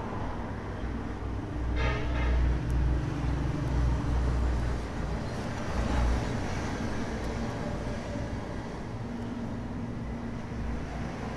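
Low background rumble, swelling for a few seconds from about two seconds in, with a brief run of faint ticks just before it.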